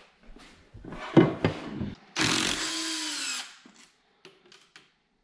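Power drill running a bolt for about a second, its motor pitch rising and then falling away as it stops. Before it come a few knocks and clicks of tools and metal parts being handled.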